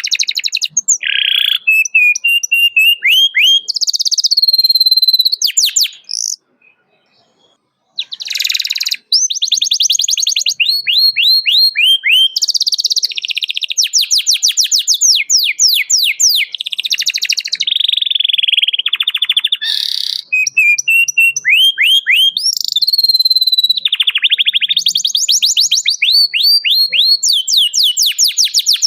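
Domestic canary singing a long, loud song of rapid trills and repeated sweeping chirps, with a short break about six seconds in before the song resumes.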